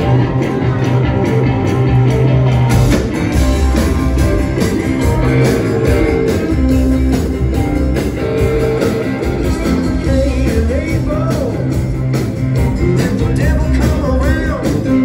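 Live rock band playing a song: electric and acoustic guitars over bass and a steady drum beat.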